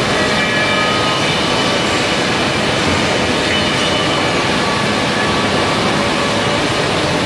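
Hydraulic machinery running: a steady, even mechanical noise with faint high whining tones held level throughout.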